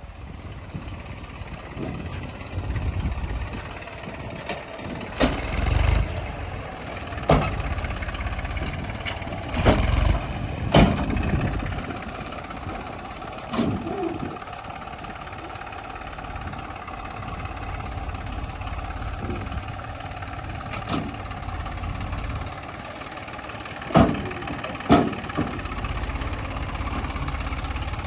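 Backhoe loader's diesel engine running steadily at work, with several sharp metallic clanks spread through it.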